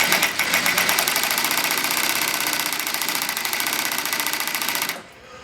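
AT2150M zigzag walking-foot cylinder-bed industrial sewing machine running at steady speed while sewing leather, its needle stroking in a rapid, even rhythm. It stops abruptly about five seconds in.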